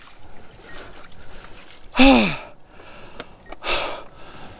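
A man's wordless exclamation, one loud call falling in pitch, about two seconds in, followed by heavy breaths about once a second: he is out of breath after fighting and releasing a big white sturgeon.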